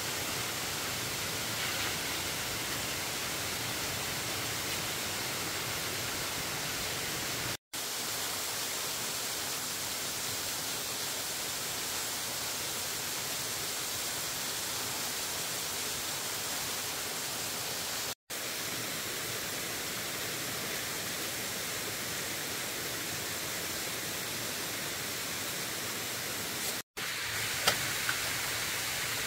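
A steady, even hiss of noise that cuts out for an instant three times, with one short sharp tap near the end.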